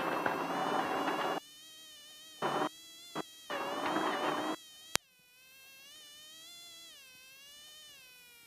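Off-road race vehicle's engine whining and buzzing as its revs rise and fall over the rough course, heard through the in-car intercom. Loud bursts of rushing noise cut in and out in the first half, with a sharp click about five seconds in.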